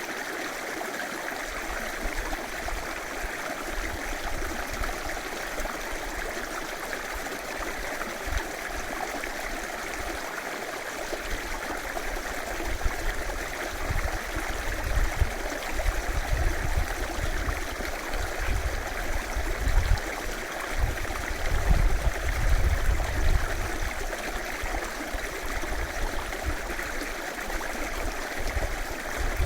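River water running over stones, a steady, even rush. About halfway through there are irregular low rumbles underneath it.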